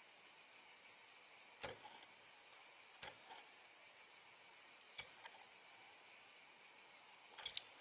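Feeder crickets chirping steadily in a high, continuous trill, with a few sharp clicks about every one and a half to two seconds.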